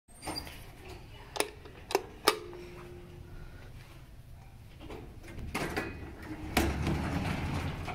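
Three sharp clicks, then the old hydraulic elevator's doors opening with a low rumble and a loud clunk about six and a half seconds in.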